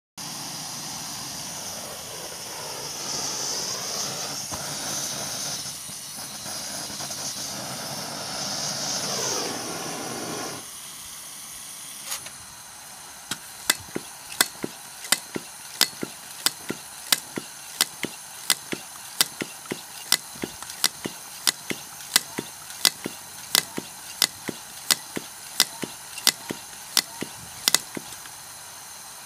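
A steady hiss, which stops abruptly about ten seconds in: a blowtorch flame heating the paraffin burner's vaporiser of a Philips Stirling engine generating set. Then a quieter background with sharp, evenly spaced clicks about twice a second.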